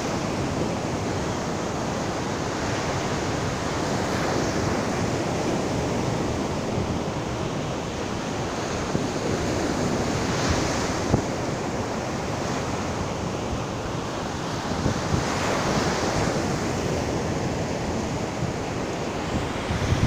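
Ocean surf breaking and washing up a sandy beach: a steady rush that swells every few seconds as each wave breaks.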